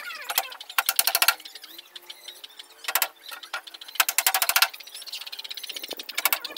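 Hammer driving nails into the back panel of a teak wardrobe, in several short bursts of rapid taps.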